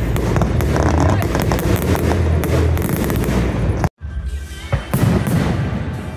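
Fireworks display: dense crackling and bangs with music playing under them. The sound breaks off abruptly just before four seconds in, and a single loud bang follows about a second later.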